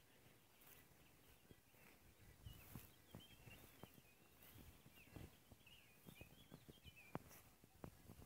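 Near silence: faint outdoor ambience with distant birds chirping and a few faint clicks. The motorcycle's engine is not running.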